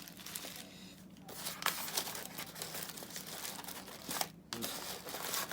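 Packaging crinkling and rustling as ceiling-fan parts are handled and pulled out of their wrapping, with many small crackles and a brief pause near the end.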